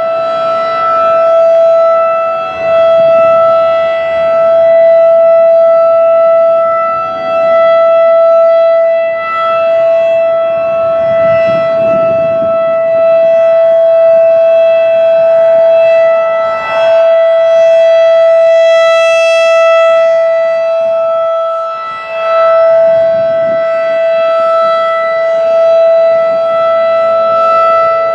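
Federal Signal 2001-DC rotating outdoor warning siren sounding a steady alert on one tone of about 662 Hz. Its loudness swells and dips as the slowly turning horn sweeps around.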